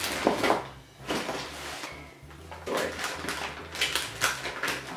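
Christmas wrapping paper crinkling and a paper gift bag rustling as wrapped gifts are handled and folded, in uneven bursts of rustle.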